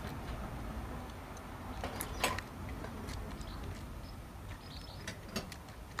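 Tits at a bird feeder: a scattered few sharp taps and clicks of beaks pecking at seed and birds landing on the feeder, the loudest about two seconds in, over a steady low rumble.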